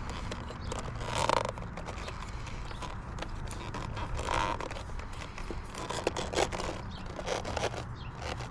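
Small clicks and scrapes of hand tools and metal parts, with two short scraping sounds about a second and about four seconds in and a run of light clicks later, as a wire terminal is fastened to the negative pole of a motorcycle battery.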